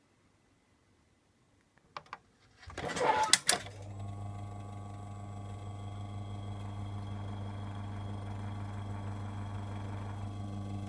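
Hitachi UL-20GS ventilation fan, made in 1995, being switched on: two clicks about two seconds in, a short loud clatter, then the motor settles into a steady hum.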